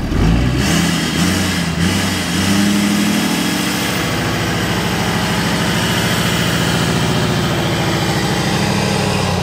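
Ford pickup's engine revved and held under load while trying to drive the stuck truck camper out of soft sand on aired-down tyres. The revs rise about two seconds in, hold steady, and drop away near the end.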